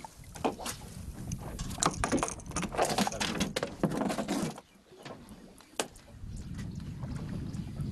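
Knocks, thumps and splashing against a small fishing boat's hull as a fish is brought up alongside and aboard. The run stops abruptly about four and a half seconds in. A steady low rumble of wind and water follows.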